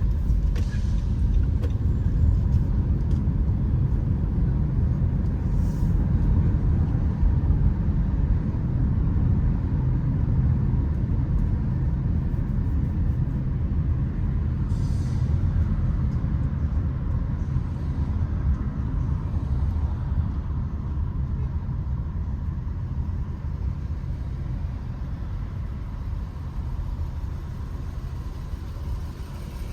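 Steady low rumble of road traffic, with a few short hisses, the clearest about halfway through.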